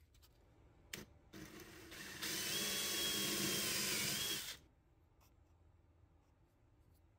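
Electric drill running for about three seconds. A single click comes about a second in, then the drill starts, gets louder and faster about a second later, and cuts off sharply.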